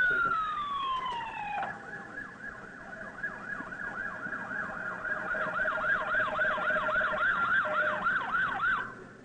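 Police car siren: a wail winding down in pitch, then switching to a fast yelp of about three sweeps a second, which cuts off shortly before the end.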